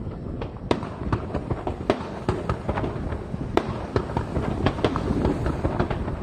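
Aerial fireworks bursting in quick succession: a dense, irregular run of sharp bangs, several a second, over a steady low rumble.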